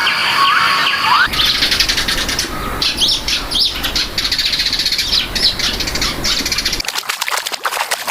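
Birds chirping in short, high calls over a fast, dense pulsing buzz. The soundscape changes abruptly about a second in and again near the end.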